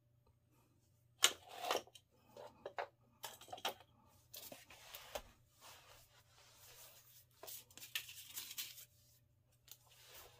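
Packaging rustled and torn open, with light clicks of small items set down on a wooden tabletop, as epoxy supplies are laid out. The handling noises come in irregular spells from about a second in.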